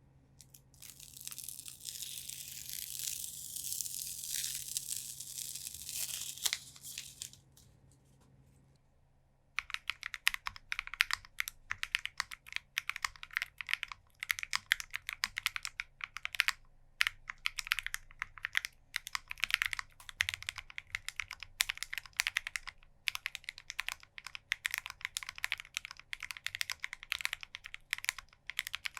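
A few seconds of crinkling, tearing noise, then from about ten seconds in fast steady typing on an Akko ACR Pro Alice mechanical keyboard: a rapid stream of keystrokes on lubed Akko CS Crystal linear switches under PBT keycaps.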